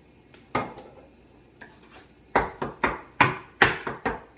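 Steel bench scraper chopping down through riced potatoes onto a wooden butcher block, cutting in the egg and olive oil: a single knock about half a second in, then a quick run of about eight chops.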